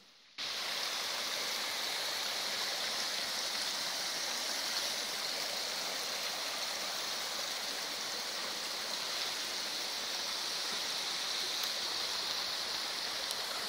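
Small woodland brook running over stones: a steady splashing water noise.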